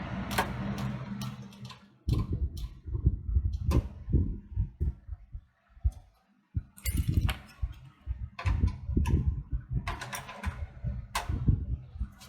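Irregular clicks, knocks and rattles of work on a desktop PC's metal case, with low handling rumble, as the USB expansion bracket is screwed in and the case closed up.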